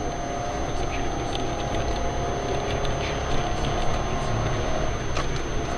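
Steady road and engine rumble inside the cabin of a moving car, with a faint even hum above it.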